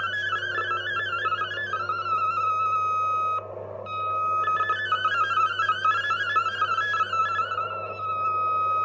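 Digital MFSK data signal of the VOA Radiogram shortwave broadcast, received on a TRIO 9R-59DS tube receiver: a warbling string of rapidly hopping tones carrying text. Twice it settles into a single steady tone, with a brief drop-out about three and a half seconds in, over a steady low hum and band noise.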